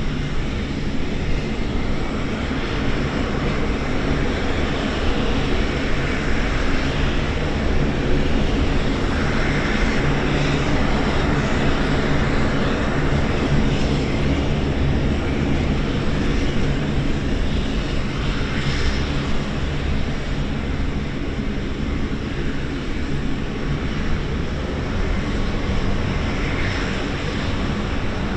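C-130J-30 Super Hercules four-engine turboprops taxiing past in turn, the Rolls-Royce AE 2100 engines and six-bladed propellers running at taxi power with a steady drone and hiss.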